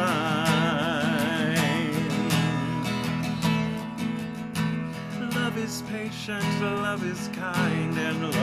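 Song performance: a voice holds a long sung note with vibrato over strummed acoustic guitar, the guitar carries on alone for a few seconds, and the singing comes back near the end.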